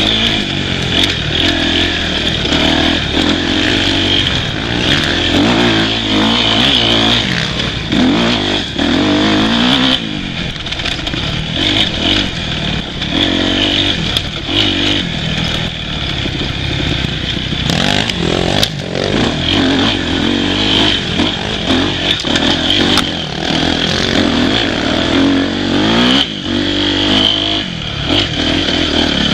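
Dirt bike engine revving up and down with the throttle as the bike rides a rough forest single track, with scattered clatter and knocks from the bike over the bumps.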